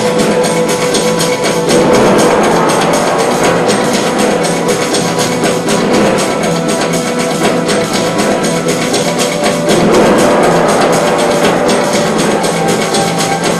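Music with drums and percussion keeping a dense, fast beat; it swells louder about two seconds in and again near ten seconds.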